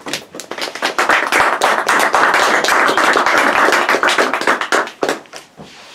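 A small group applauding, the separate claps easy to pick out. It swells within the first second and dies away about five seconds in, with a few last claps.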